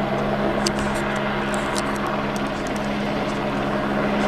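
Light single-engine helicopter flying slowly while towing a cable-pulling rope; its engine and rotors run steadily with a constant low hum.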